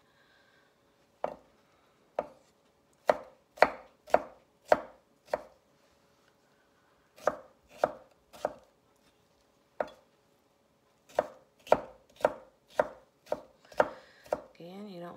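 Chef's knife dicing green tomatoes on a wooden cutting board: sharp knocks of the blade striking the board, in uneven runs of several cuts with short pauses between them.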